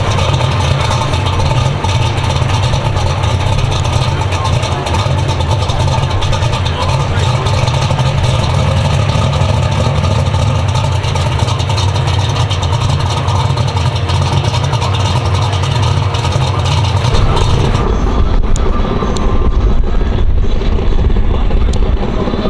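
A Fox-body Mustang drag car's engine running loud and steady at a slow roll. About three-quarters of the way through, the sound turns deeper and duller.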